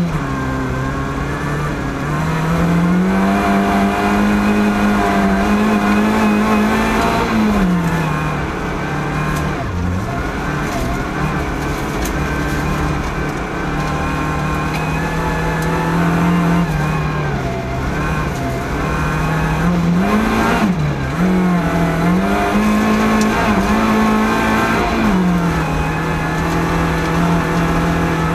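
Rally car's engine heard from inside the cockpit at full stage pace, its pitch climbing and dropping through upshifts and downshifts. There are short lifts off the throttle about ten seconds in and again around twenty-one seconds.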